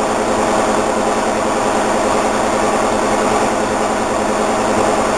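A steady machine hum at a constant pitch, running evenly with no change.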